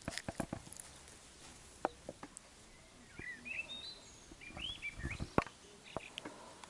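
Labrador puppies scuffling and pawing right at the microphone: sharp knocks and rustles, loudest near the start and again about five seconds in. A few short, high chirping calls come in the middle.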